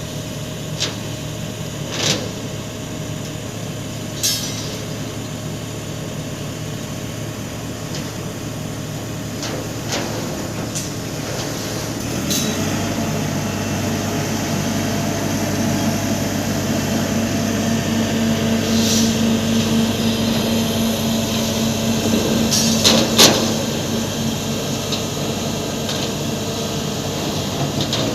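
Engine of heavy machinery running steadily, picking up speed about twelve seconds in and holding there, with a few sharp metallic knocks, the loudest a double knock near the end.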